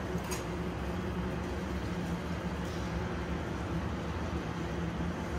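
Steady low machine hum and rush of a commercial kitchen's background machinery, with a faint click just after the start and a sharp knock at the very end.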